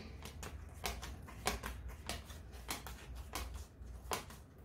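A deck of tarot cards being shuffled by hand, the cards giving soft, irregular clicks and flicks about four times a second.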